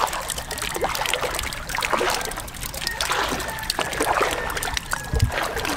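Shallow water splashing and trickling in many small, irregular splashes.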